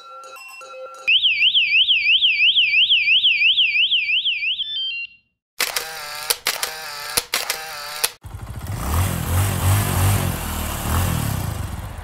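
Electronic alarm siren warbling: a high tone sweeping rapidly up and down about three or four times a second for about four seconds, then cutting off. After a brief pause come a few clicks, and from about eight seconds in a loud rushing noise with a low pulsing rumble.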